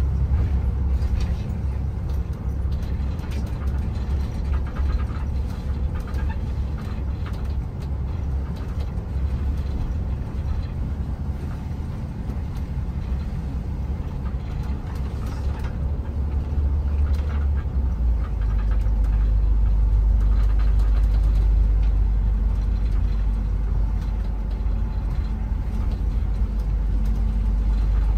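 Shuttle bus ride heard from inside the cabin: a steady low engine and road rumble. About two-thirds of the way through, the drone drops lower and grows a little louder.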